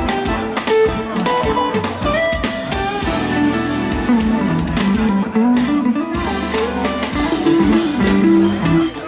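Background music: guitar-led instrumental with a drum kit keeping a steady beat.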